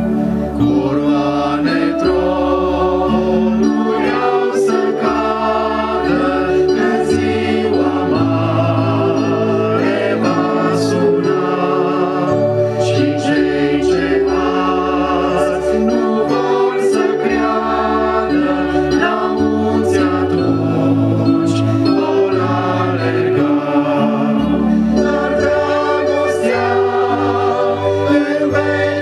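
Congregational Christian hymn sung by a small group of men's and women's voices over sustained keyboard chords with a slow-moving bass line.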